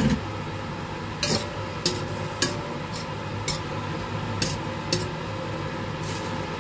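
A metal spatula clanks and scrapes against a stainless steel wok as sliced beef and onion are stir-fried, striking roughly every half second over a steady low hum.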